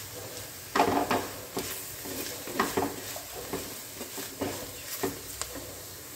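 Wooden spatula scraping and stirring through fried onions and dry spice powders in a clay pot, with a light sizzle. The strokes come unevenly, the loudest about a second in, as the masala is mixed into the browned onions to fry.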